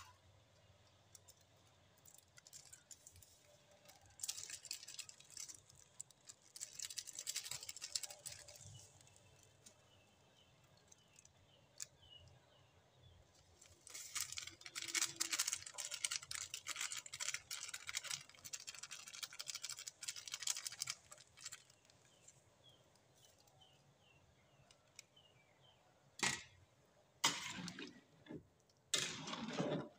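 Coconut-milk vegetable stew simmering in a metal pan, bubbling and popping in stretches. Near the end a spatula stirs it with a few loud scrapes and sloshes against the pan.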